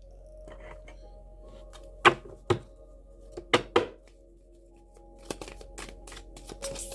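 Sharp taps and clicks of tarot cards being handled on a table: two pairs of taps about two and three and a half seconds in, then lighter clicks, over faint background music.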